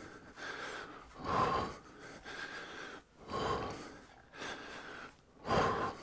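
A man breathing hard from exertion during a warm-up: a louder noisy breath about every two seconds, with softer breaths in between.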